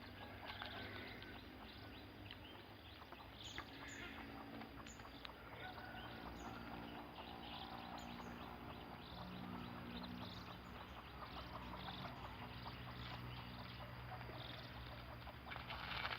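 Faint, scattered short bird chirps and calls over a low steady hum.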